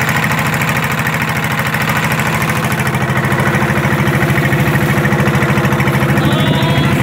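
Small boat's motor running steadily underway with a fast even pulse, over a steady hiss of water and wind past the moving hull.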